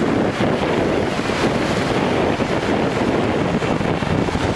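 Wind buffeting the microphone over the steady wash of small surf breaking and running up the beach.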